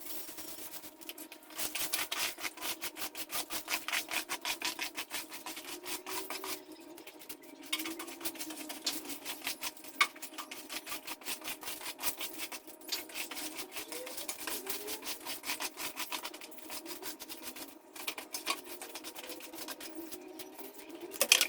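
Stiff broom scrubbing a wet concrete floor in fast back-and-forth strokes, with a few brief pauses.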